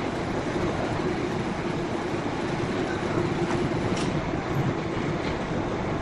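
Sawmill machinery running with a steady rumble and a faint hum, with a few light clicks in the second half.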